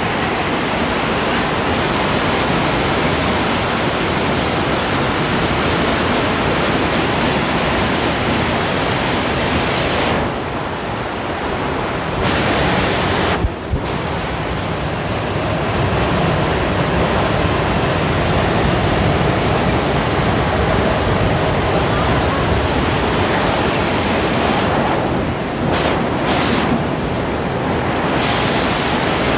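Hailstorm: hail and rain pelting down in a loud, steady wash of noise. The high end thins out briefly about ten seconds in and again near the end.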